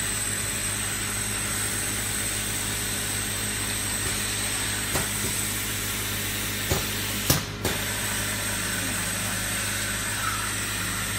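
Automatic silk screen printing machine running: a steady hum and hiss with a thin high tone over it, and a few sharp clicks between about five and eight seconds in, the loudest just past seven seconds.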